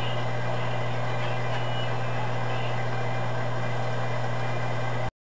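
Audichron STM-100M-T talking-clock machine running between announcements: a steady hum from its motor and turning drum, cutting off suddenly near the end.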